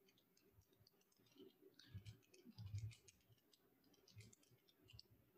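Faint computer keyboard typing: scattered soft key clicks with near silence between them.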